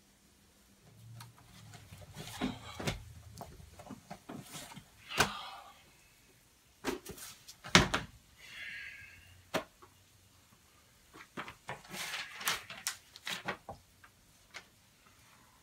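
Papers and a book being handled and rustled over a backpack, with scattered knocks, clicks and thumps; the loudest knock comes about eight seconds in.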